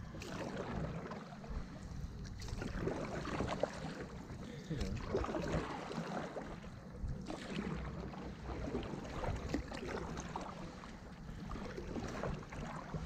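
Paddles of two riders on a 15 ft Bluefin tandem inflatable stand-up paddleboard dipping and pulling through calm river water: repeated splashes and swishes, irregular, about every second or two.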